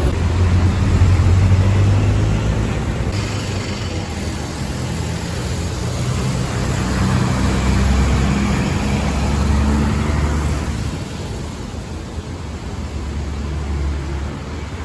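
A motor vehicle's engine running, its low drone rising and falling in pitch, over road noise.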